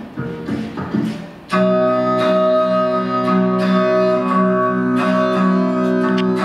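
Music playing through the Mars levitating Bluetooth speaker, set to its bass EQ. About a second and a half in, a loud held chord comes in and sounds steadily until just before the end.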